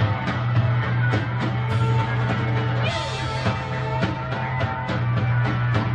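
Live rock band playing psychedelic punk rock: electric guitar, bass guitar and a drum kit. The drums strike several times a second over a heavy, steady bass line.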